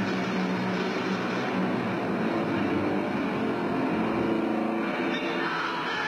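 A band playing heavy metal live and loud, with distorted electric guitar. The camcorder recording turns it into a dense, unbroken wash of noise with little detail.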